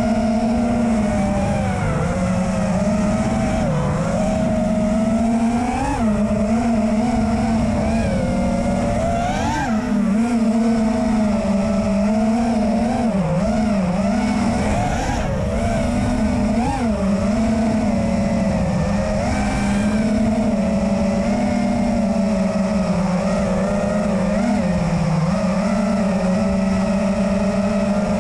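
Five-inch FPV racing quadcopter's four 2306 2500kv brushless motors and propellers, heard from the onboard camera: a steady hum whose pitch dips and jumps briefly every few seconds with small throttle changes while cruising.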